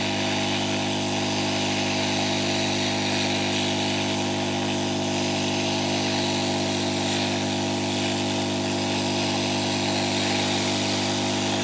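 Hot-air rework gun blowing steadily onto a surface-mount IC to melt its solder for removal: an even fan hum with a rush of air that does not change.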